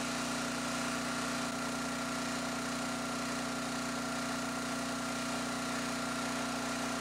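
Hot air rework station handpiece blowing steadily, a hum with a faint higher whine over a hiss of air, as it heats an EEPROM chip to melt its solder for removal.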